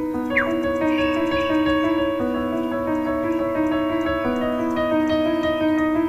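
Background piano music with slow, held chords, and a short rising whistle-like sound about half a second in.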